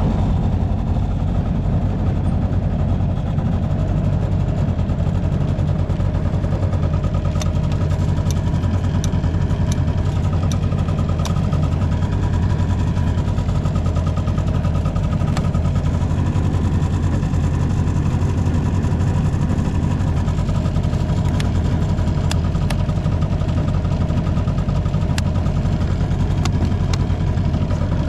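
Honda Cabina 90 scooter engine running steadily at an even speed, with no knocking or other abnormal noise. A few light clicks sound over it from about a quarter of the way in.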